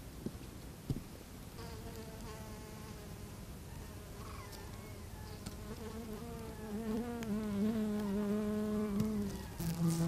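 Flying insects buzzing round the flowers. A higher, wavering buzz comes in about a second and a half in. A lower, louder buzz joins about halfway and is loudest near the end, dropping in pitch just before it stops. Two soft taps come in the first second.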